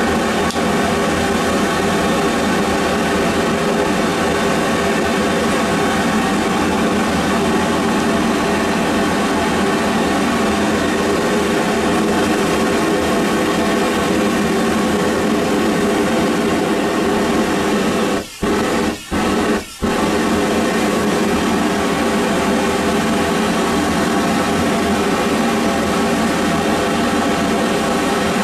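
Homemade venturi propane-butane burner running with a steady gas-flame roar. The sound drops out briefly three times in quick succession about eighteen seconds in.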